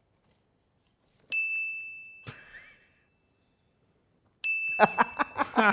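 Two identical bright 'ding' sound effects, each a single high bell-like tone that starts sharply and fades, about three seconds apart. Men's voices come in just after the second ding.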